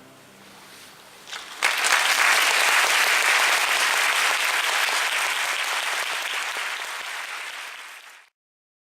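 Audience applauding, a few first claps at about a second and a half in, then full applause that thins out slowly and cuts off abruptly near the end. At the very start the last ring of an orchestra's final chord dies away.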